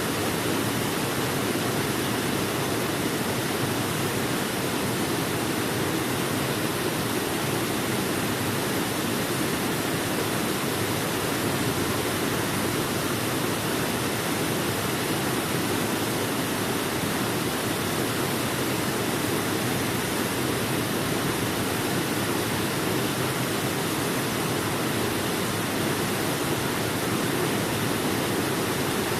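Waterfall: water falling in a steady, unchanging rush, deepest in tone, with no separate splashes or breaks.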